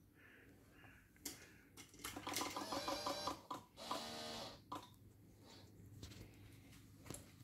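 A click, then quiet, rapid mechanical ticking and whirring with a whine for about two and a half seconds, stopping about four and a half seconds in. It comes from a motorcycle being readied for a cold start; its engine is not yet running.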